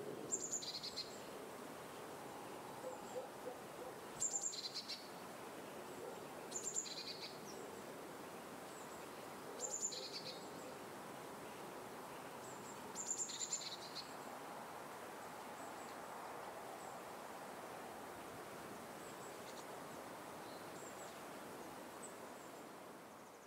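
Wild birds calling over a steady background hiss: a short, very high two-part call, a top note then a slightly lower one, comes five times a few seconds apart, with fainter single chirps later. The sound fades out at the very end.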